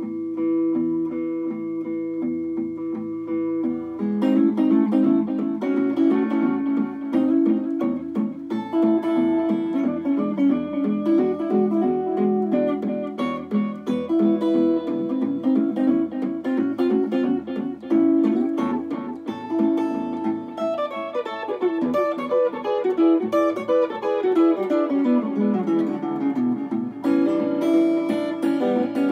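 Electric guitar playing an instrumental melody: a held chord for the first few seconds, then single picked notes, with a run of notes falling in pitch about three-quarters of the way through.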